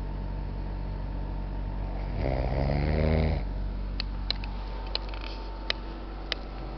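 A sleeping person snoring: one long, low snore about two seconds in, followed by a few faint sharp clicks.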